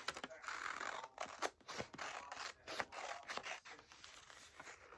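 Scissors cutting a traced shape out of folded paper, a string of irregular short snips and rasps.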